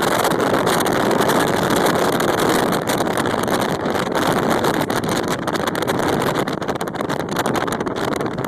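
Strong wind buffeting the microphone, a loud, steady rushing noise that flickers rapidly in level.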